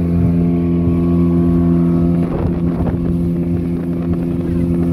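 Speedboat's outboard motor running steadily at speed, heard from on board.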